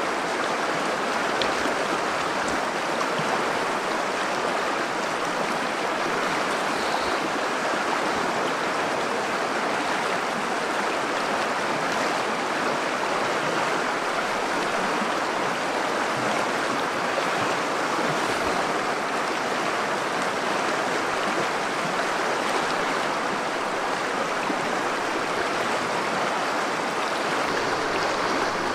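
Shallow river running over rocks and pebbles: a steady rush of flowing water.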